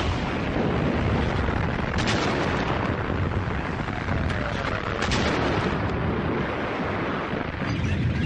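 Battle sounds of gunfire and explosions: a continuous heavy rumble with sharp shots standing out about two seconds and five seconds in.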